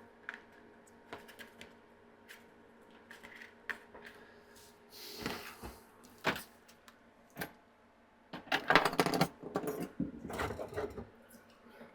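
Clicks, taps and rattles of small plastic parts being handled as an LED ceiling light's driver board is fitted back into its plastic case, with a short scraping rustle about five seconds in and a busier run of clicking and rattling in the second half.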